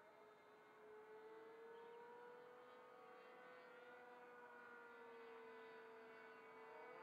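Faint, steady drone of a distant RC model airplane's two-stroke glow engine in flight, its pitch slowly rising and falling as the plane moves through the sky.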